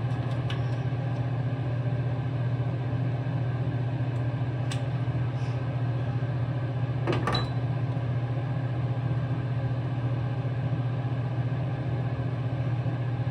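Steady low hum of a small motor or fan. A single light knock, as of an object being handled, comes about seven seconds in.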